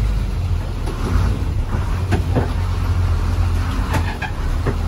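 Diesel lorry engine running at low speed, heard from inside the cab as a steady low rumble while the truck pulls in, with a few light clicks and rattles from the cab.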